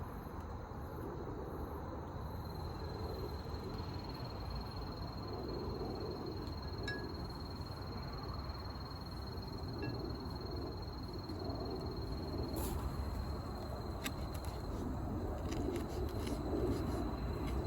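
Steady outdoor background noise with bird calls, crows by their harsh sound, and a few sharp clicks in the second half.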